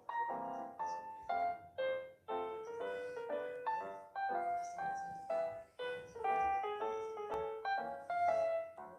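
Background music: a light piano-like melody of quick, separate notes, each struck and fading.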